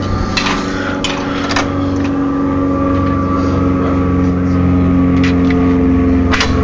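Freshly rebuilt Yamaha R1 motorcycle engine idling steadily, not yet broken in. A couple of sharp clicks come near the end.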